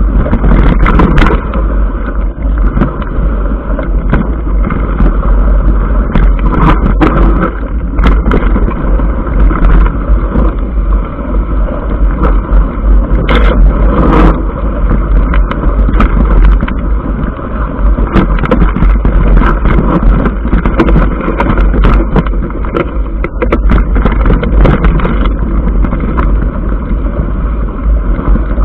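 Mountain bike rolling down a stony gravel track, heard through an action camera: steady wind buffeting on the microphone over tyre rumble, with frequent sharp clicks and knocks as the bike and camera mount jolt over stones.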